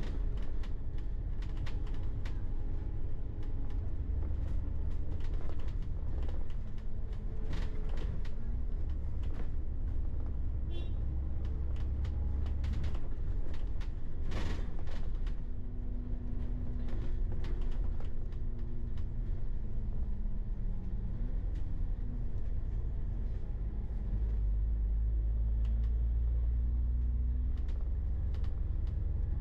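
A motor vehicle engine running with a steady low rumble, overlaid with frequent small clicks and creaking rattles.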